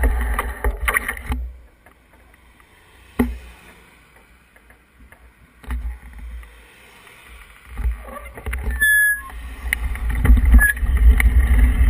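Wind rumbling on a moving action camera's microphone, which dies away about a second and a half in. A quiet stretch with a single sharp click follows, then a car passes close and the low wind rumble returns near the end.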